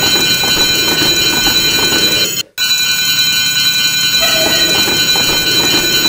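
Japanese railroad crossing alarm bell ringing in its steady repeating pattern over the rumble and clatter of a passing train. The sound breaks off for an instant about two and a half seconds in, then the same bell and train sound starts over.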